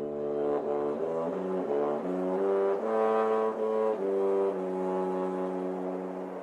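Brass-toned intro music: a series of held chords that change every half second or so, then settle into one long held chord for the last couple of seconds.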